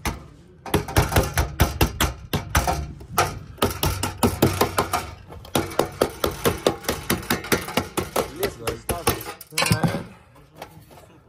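Claw hammer tapping on a sheet-metal gutter corner, knocking the mitered flaps into place: a steady run of quick metallic blows, several a second, that stops about two seconds before the end.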